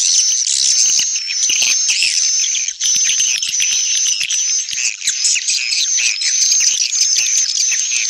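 Recorded swiftlet calls from a swiftlet-house lure track, a stereo mix of call sound and roosting sound: dense, continuous high-pitched chirping and twittering with short chirps repeating over and over.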